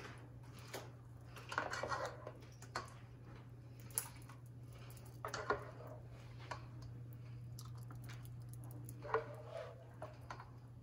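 A serving spoon scooping thick cream sauce from a nonstick pot: scattered scrapes and clinks of the spoon against the pot, with soft wet splats, over a steady low hum.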